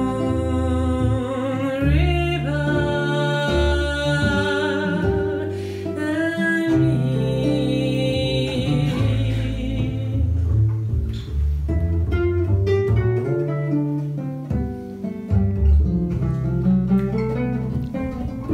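Mezzo-soprano singing a slow song to a pizzicato double-bass accompaniment. About halfway through the voice stops and the plucked double bass plays on alone.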